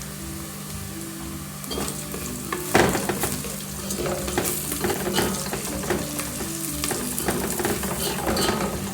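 Onions, garlic and curry powder sizzling as they fry in hot oil, with a spoon stirring and scraping the pot from about two seconds in and a sharper knock just before three seconds.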